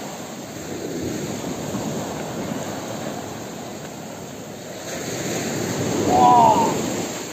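Waves breaking and washing up a sandy beach, the rush of surf swelling about five seconds in. A brief shout rises over it near the end.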